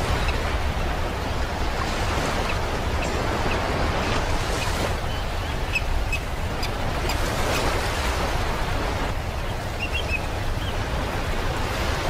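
Ocean surf washing onto a beach: a steady rushing wash that swells and eases slightly, over a low rumble.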